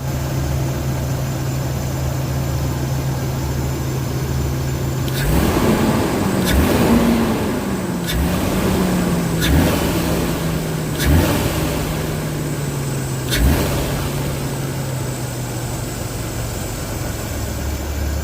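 Nissan RB25 straight-six engine breathing through an Apexi pod air filter, idling steadily, then revved from about five seconds in. The pitch rises and slowly falls back toward idle, and several short sharp sounds come with the revs.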